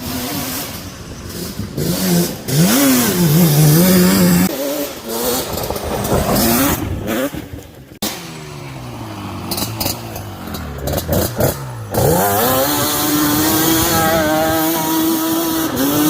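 1998 Yamaha Banshee's twin-cylinder two-stroke engine revving up and down as the quad is ridden, its pitch rising and falling. It drops away briefly about eight seconds in, then runs at a steady high pitch near the end.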